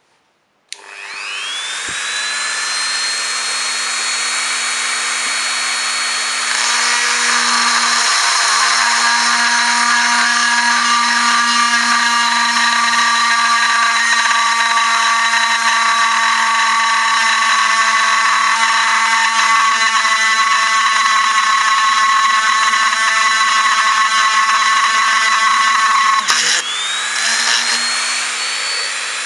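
Dremel rotary tool with a fine glass drill bit spinning up to a steady high whine, then drilling into a glass beer bottle with a louder, gritty grinding from about six seconds in. Near the end the motor briefly dips and winds back up.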